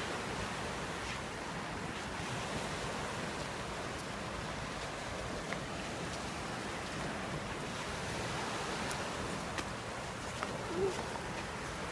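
Sea surf washing onto a sandy beach: a steady rush of waves.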